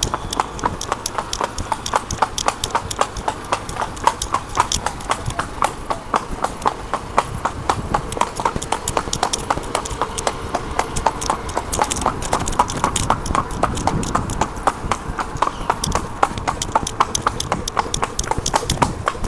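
Horse's hooves clip-clopping on a hard road under a rider, a quick, even rhythm of hoofbeats that keeps up without a break.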